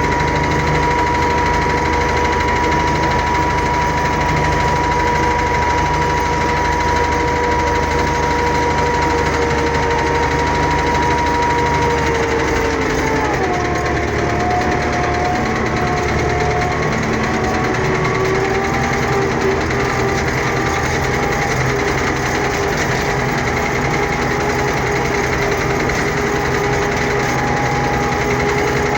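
Engine of a farm machine working the soil, running steadily. About halfway through, its pitch falls as the engine slows, then holds at the lower speed.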